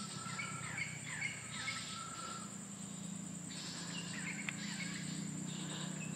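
Birds calling with short chirps and level whistles, over a steady high-pitched insect drone and a low steady hum.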